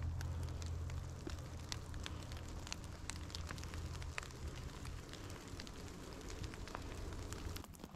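Light rain in a forest: scattered drops ticking and pattering, over a low rumble that eases off about four seconds in.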